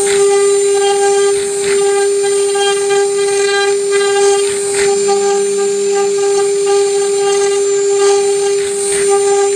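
CNC router spindle running with a steady high whine while its bit engraves wood, with scattered brief crackles of the cut.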